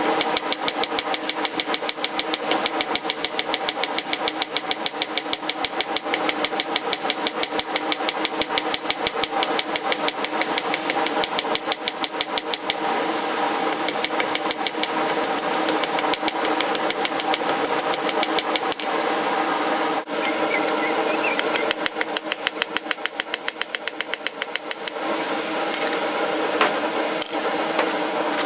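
Hand hammer striking a steel bar on an anvil in rapid, even blows, about five or six a second. The blows stop for about two seconds in the second half, then a last run follows.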